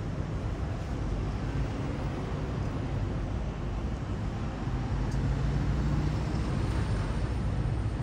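Steady low rumble of road traffic, with a low engine hum swelling for about a second and a half around five seconds in.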